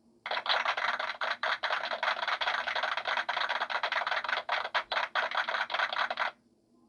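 A noisy effect played back from a sound effect machine, lasting about six seconds with a rapid, uneven flutter, and cutting off suddenly.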